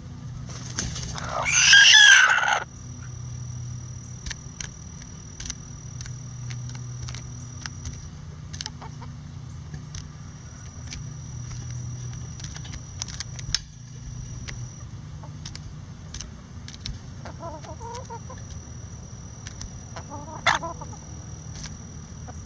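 A bantam rooster crows once, loud and for about two seconds, starting about a second in. Later, a few short clucks come from the flock, over light tapping from beaks pecking at a hanging cabbage.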